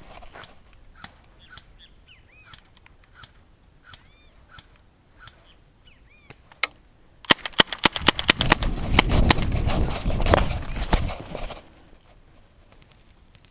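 Airsoft gun firing a rapid string of shots about seven seconds in, followed by a few more single shots, over a loud rustling stretch that stops near the end. Faint bird chirps repeat beforehand.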